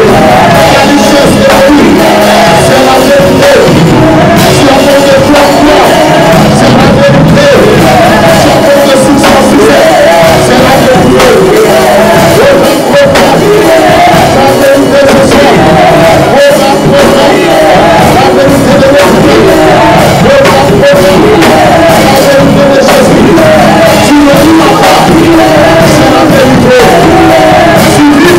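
Church praise and worship music: a group of singers at microphones singing together over musical accompaniment, loud and unbroken.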